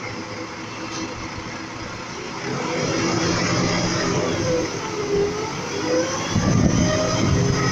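Volvo front-lift garbage truck's diesel engine running and revving as the truck creeps its forks up to a steel bin, with a wavering whine in the middle and getting louder twice.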